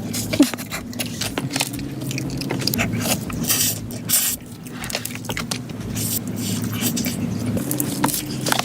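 Close-miked eating of a soft cream cake: irregular wet mouth clicks and chewing, over a steady low hum.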